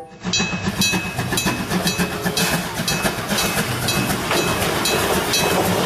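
Steam locomotive running past on the rails, a dense noise of chuffing and clanking, with a level-crossing bell ringing about twice a second.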